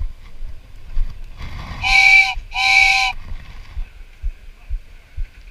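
Two short horn blasts, each about half a second long, sounding two notes together.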